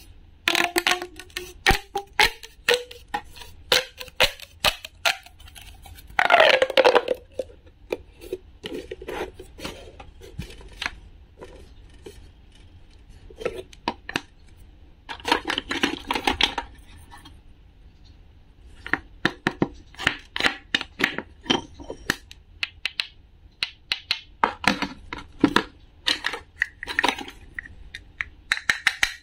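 Plastic pop tube toy being stretched and bent, its corrugated ridges snapping open with a steadily rising whirring tone for the first few seconds and a fast pitched sweep about six seconds in. After that, clicks, taps and scrapes of a wooden toy knife on a wooden board and of plastic toy fruit pieces being handled.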